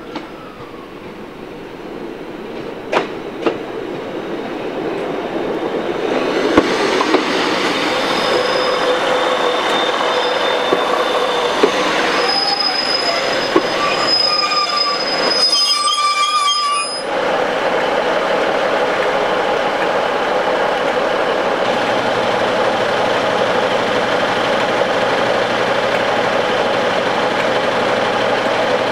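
Class 156 Sprinter diesel multiple unit pulling into a station: it grows louder as it approaches, with a few sharp clicks, then squeals steadily as it slows. About seventeen seconds in the squeal stops suddenly and the train stands with its underfloor diesel engines idling steadily.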